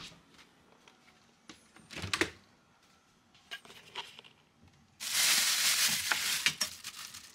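Refrigerator being opened and its contents handled: a click as the door opens, scattered knocks of containers being moved, then about five seconds in a loud crinkling of plastic bags for about two seconds.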